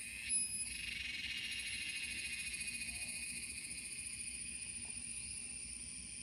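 Rainforest insects shrilling steadily in a high-pitched, finely pulsing drone. A brief louder chirp comes about half a second in.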